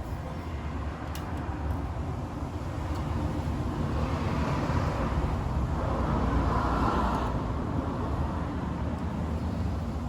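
A road vehicle going by: a low rumble that builds slowly, peaks about two thirds of the way through, then eases off.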